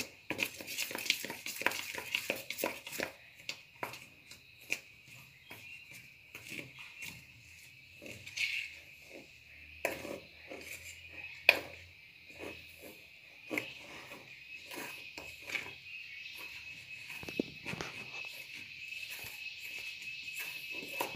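Metal spoon stirring and beating thick flour batter in a stainless steel bowl, with irregular clicks and scrapes of the spoon against the bowl. A faint steady high tone runs behind, more continuous in the second half.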